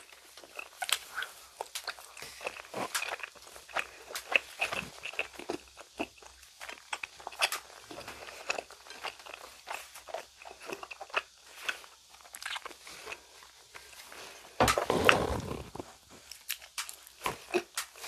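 A child chewing frog-shaped gummy candies: many short, irregular clicks of chewing. About fifteen seconds in there is a louder burst lasting about a second.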